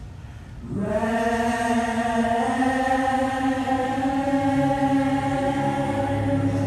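Recorded gospel music: a choir's long held chord fades, and after a short dip a new sustained chord swells in and is held, with a low bass note joining partway through.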